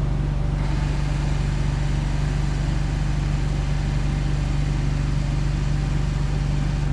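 Vehicle engine idling: a steady low hum with a constant hiss above it.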